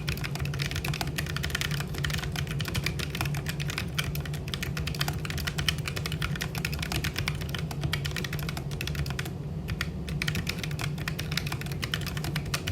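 Fast typing on a Keychron K1 mechanical keyboard with low-profile Gateron brown switches: a dense, continuous patter of keystroke clicks, thinning for a moment about three-quarters of the way through.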